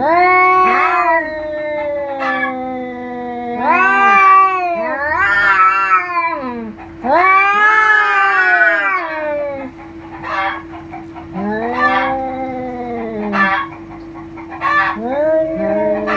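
Domestic cats yowling at each other in a fight: a string of long, wavering, drawn-out yowls that rise and fall in pitch, with shorter sharp cries in the gaps.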